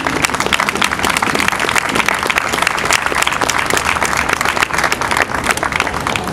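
A crowd applauding: many hands clapping densely, thinning slightly near the end.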